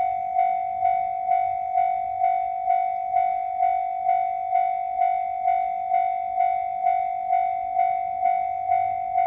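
Japanese railroad level-crossing warning alarm ringing: a single pitched ding repeated steadily about twice a second, each stroke fading quickly.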